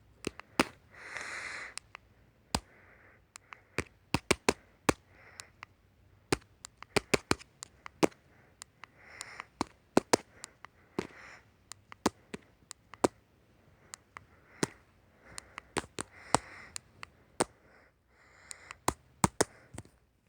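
Mouth percussion in the style of beatboxing: sharp clicks and pops in uneven clusters, mixed with short hissing "ts" breaths.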